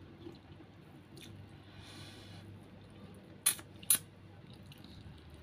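Someone eating rice and fried fish by hand: faint chewing, with two short sharp clicks about half a second apart roughly two-thirds of the way in.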